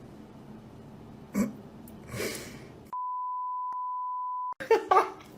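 A steady single-pitch censor bleep lasting about a second and a half, with all other sound dropped out while it plays. Before it come a dull knock and a short hiss; after it, a few sharp knocks.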